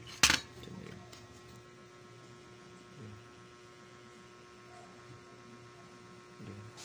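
A single sharp click about a third of a second in, from handling the opened mini sewing machine's needle-and-hook mechanism. After it comes a faint, steady electrical hum.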